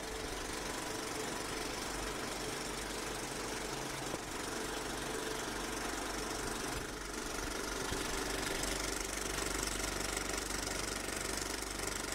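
A machine running steadily with a rapid mechanical clatter, over hiss and a low hum.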